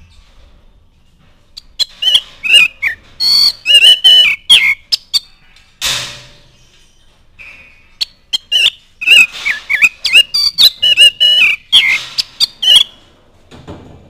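Oriental magpie-robin singing loudly in two runs of quick, varied whistles and clicks, with a single harsh hissing note in the pause between them.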